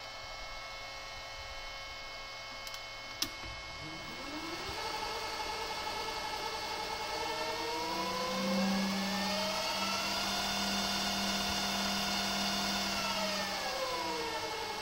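Emco Maximat Mentor 10 lathe motor and drivetrain, run from a Lenze variable-frequency drive, spinning up with a rising whine, running at steady speed, then spinning down with a falling whine near the end. A single click comes about three seconds in, before the speed-up.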